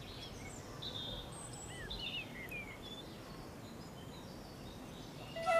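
Open-air ambience with small birds chirping, a scatter of short high calls in the first few seconds. A flute melody comes in just before the end.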